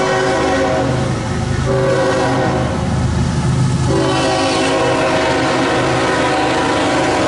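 Freight locomotive's multi-chime air horn blowing for a grade crossing, a loud held chord that breaks briefly about a second and a half in and again near four seconds, over the low rumble of the approaching train.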